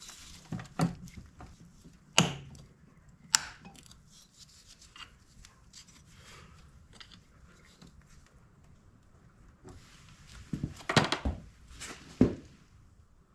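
Scattered sharp knocks and clunks of hand tools and metal engine parts as the cylinder head of a 2005 Yamaha TTR90E is worked loose: one loud knock about two seconds in, another a second later, and a quick cluster of knocks near the end, with light handling noise between.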